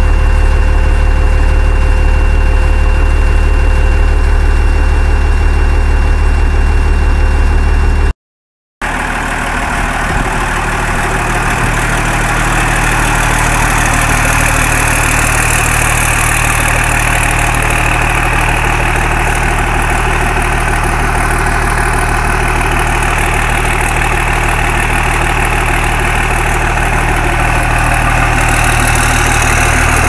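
Military 5-ton truck's diesel engine idling steadily, warming up after a cold start. It is heard first from inside the cab; after a brief break about eight seconds in, it is heard from outside beside the truck with more hiss.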